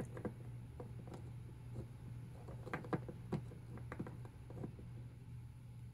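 Light, scattered clicks and taps of a dry raccoon dog skull and jawbone being handled and set against a hard countertop, over a steady low hum.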